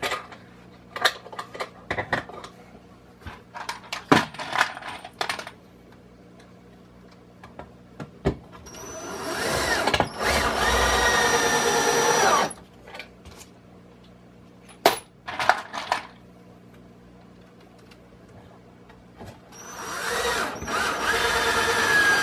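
Power drill driving Torx head screws into 2x4 lumber, twice: each run winds up and then holds a steady whir for about three to four seconds. Before them, short knocks and clicks of boards and screws being handled.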